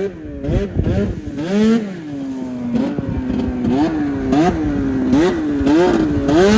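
Snowmobile engine revving up and down over and over, the throttle blipped about once or twice a second, with one longer pull near the start.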